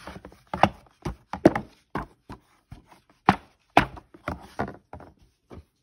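Irregular run of sharp knocks and taps, about three a second, from a hardcover picture book being shaken and bumped in the hands.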